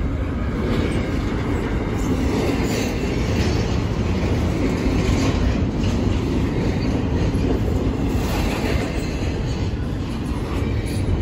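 Double-stack container well cars of a freight train rolling past at close range: a steady rumble and clatter of steel wheels on the rails.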